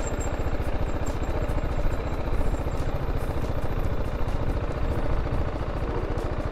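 BMW G310GS motorcycle's single-cylinder engine running at low revs as the bike rolls slowly along a sandy dirt track, with a steady, rapid, even beat.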